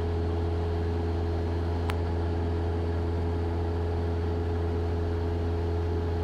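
Cessna 172 Skyhawk's piston engine and propeller droning steadily in cruise, heard inside the cabin, with a single short click about two seconds in.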